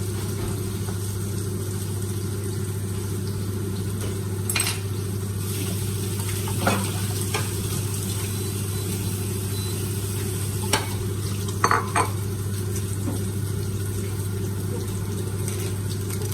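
Salmon frying in a pan, sizzling steadily, with a few short clicks of a utensil against the pan around the middle. A steady low hum runs underneath.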